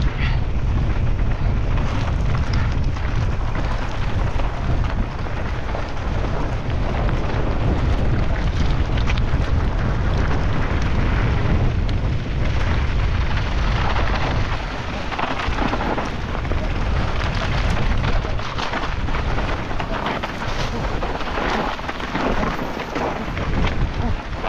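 Mountain bike descending fast over rough, rocky trail: tyres rolling and crunching over rock and dirt, with the bike rattling and knocking over the bumps, under steady wind rush on the camera microphone.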